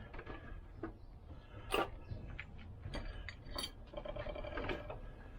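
Scattered light metallic clinks and taps as a steel circlip and pliers are handled at the gearbox endplate, the sharpest about two seconds and three and a half seconds in.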